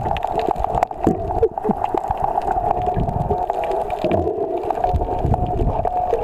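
Underwater sound picked up by a camera held below the surface: water gurgling and sloshing around it, with irregular knocks, over a steady hum.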